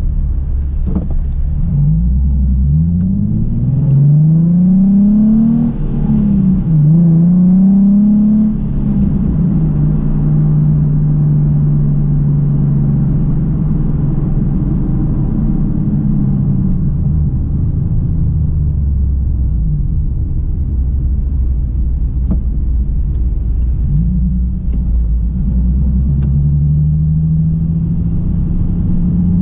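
Nissan 370Z Nismo's 3.7-litre V6 through an AAM Resonated Short Tails axle-back exhaust, accelerating away from a stop with rising engine pitch. The pitch drops at an upshift about six seconds in, climbs again, then settles into a steady cruise with a slight rise near the end.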